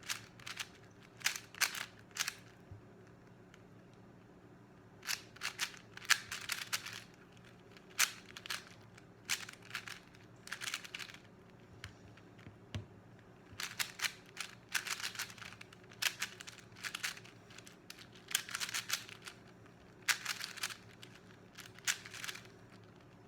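Plastic 4x4 Rubik's cube being turned: quick runs of clicking, clacking layer turns, each lasting a second or two, with short pauses between them. A faint steady hum runs underneath.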